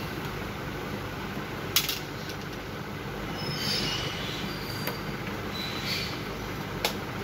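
Hands and a screwdriver working inside an opened projector: two sharp clicks of metal and plastic parts, one in the first couple of seconds and one near the end, and a brief scraping about halfway, over a steady background hum.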